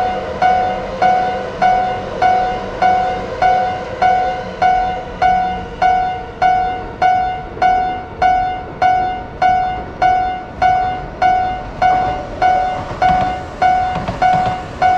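Japanese railroad crossing alarm sounding its repeated "kan-kan" bell tone, about five strikes every three seconds, each ringing briefly. A low rumbling sound joins about thirteen seconds in.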